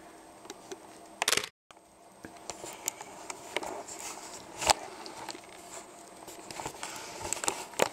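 Pomeranian puppies gnawing on chew treats: scattered small clicks and crackles of teeth working the chews. A short loud scuffing noise a little past one second in is cut off by a moment of silence.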